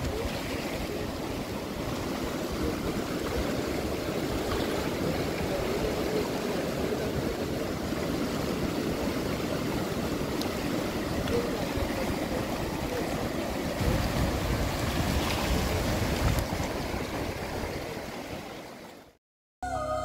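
Fast mountain river rushing through whitewater rapids, a steady roar of moving water, with low rumbles of wind on the microphone. It fades out near the end.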